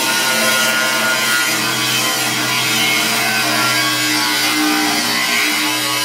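Corded angle grinder running steadily while grinding or cutting the edge of a white enamelled bathtub: a constant motor tone under a harsh, hissing grind.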